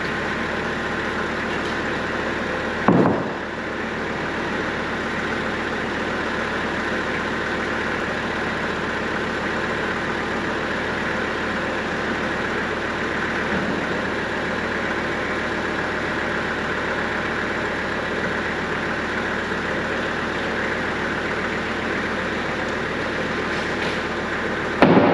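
Tractor engine running at a steady speed, with a loud thump about three seconds in and another near the end.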